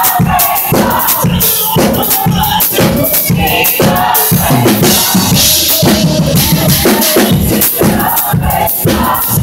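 Drum kit played loud and fast, with dense cymbal crashes and snare and tom hits, along with other live music.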